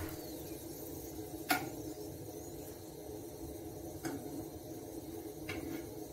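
Quiet room tone: a low, steady background hum with a few faint clicks, one about a second and a half in and a few more near the end.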